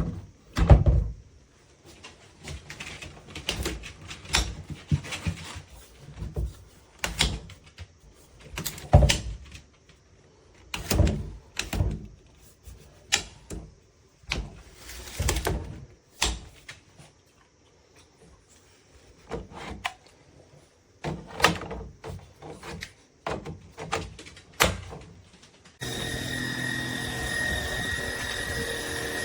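Irregular knocks and clunks of plastic vacuum parts being handled. About 26 seconds in, the cordless stick vacuum's motor switches on and runs with a steady whine.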